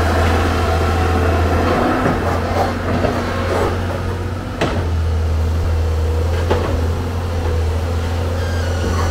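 Amphibious excavator's diesel engine running with a steady low drone, with a few short knocks, the clearest about halfway through.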